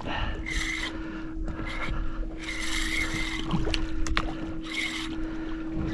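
A boat sits on the water with a steady low hum, while water slaps and splashes against the hull in short bursts every second or so.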